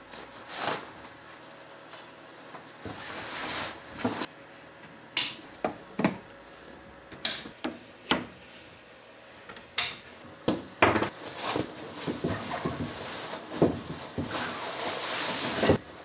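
A camp bed being set up by hand: about a dozen sharp clicks and knocks of its frame and parts going into place, with stretches of fabric rustling about three seconds in and again near the end.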